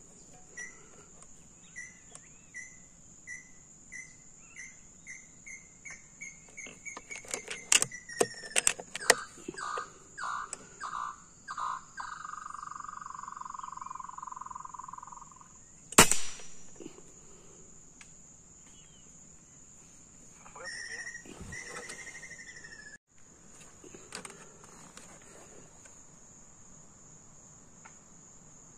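Steady high insect buzz, with a cicada calling: pulses that speed up, drop in pitch and run into a continuous buzz that stops abruptly about halfway through. A single sharp crack follows, the loudest sound here, and a short chirp comes a few seconds later.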